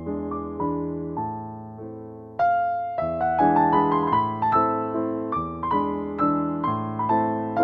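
Background piano music. Sparse, gentle notes at first, then a fuller, louder passage comes in about two and a half seconds in.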